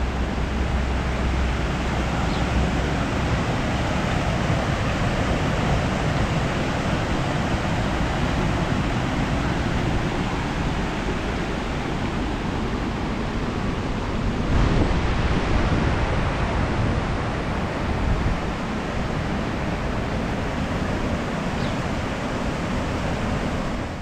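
Steady rushing of the Düden River as its water runs over small cascades and rapids.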